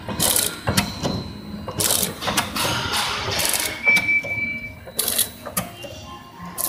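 Small sachet packing machine (HTL-400C) running: continuous mechanical clatter with a sharp burst of noise about every second and a half, one per packing cycle, and a brief high tone about four seconds in.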